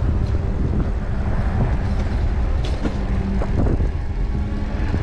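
Wind rushing over the microphone of a handlebar-mounted camera on a moving e-bike, mixed with tyre noise on pavement, with a faint steady low hum underneath.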